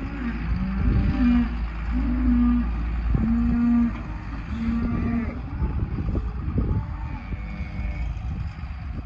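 Cows and calves mooing, several held calls about a second apart and then more scattered ones, over the steady low running of a tractor spreading bale bedding in the pen.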